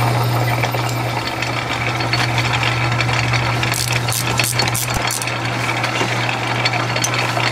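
Metal lathe running with a steady hum while a 3/4-inch reamer cuts through the bore of an oiled casting, with a few sharp clicks of chips about four to five seconds in.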